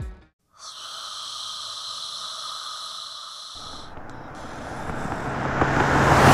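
Car sound effect: a steady hiss, then about three and a half seconds in a low engine hum and rushing noise that swell to a peak near the end, like a car driving past.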